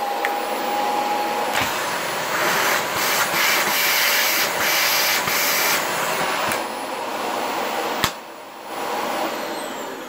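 Upright vacuum cleaner running, its hose drawing suction; the noise swells and eases in strength. Near the end there is a click, and the motor winds down with a falling whine.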